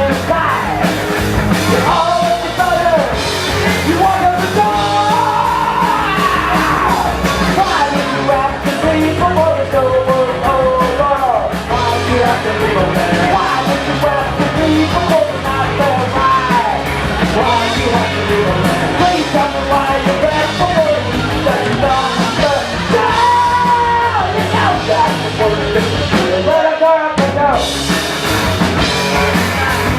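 Live rock band playing a song with a lead singer. The band drops out briefly about three seconds before the end, then comes back in.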